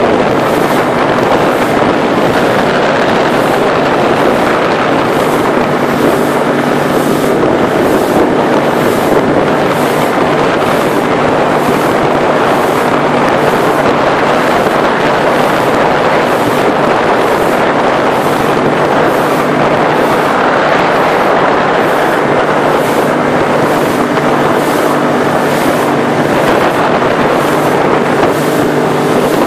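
Small motorboat's engine running steadily at cruising speed, a constant drone under a rushing noise, with wind buffeting the microphone.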